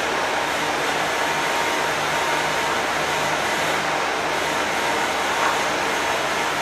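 Steady machine whirring: a rushing hiss over a low, unchanging hum, like a fan or a pump running.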